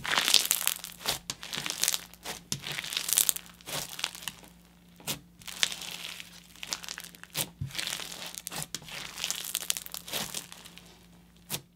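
Slushy bead slime being squeezed, stretched and pressed by hand: a crunchy, sizzly crackling, with sharp bubble pops here and there.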